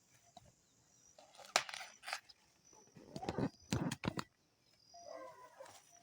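Dry corn leaves and stalks rustling, with several sharp snaps about a second and a half in and again around three to four seconds in, as ears of corn are snapped off the stalks by hand. A short, faint pitched sound follows about five seconds in.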